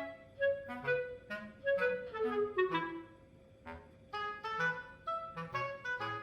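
Light instrumental background music made of short separate notes, with a falling run of notes about two and a half seconds in and a brief lull after it before the melody picks up again.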